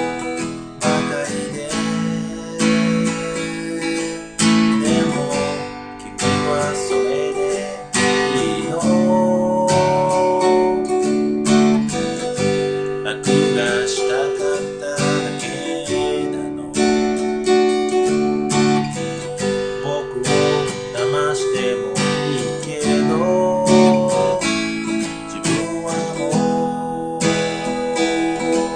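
A man singing to his own strummed acoustic guitar, a solo voice-and-guitar performance of a pop song.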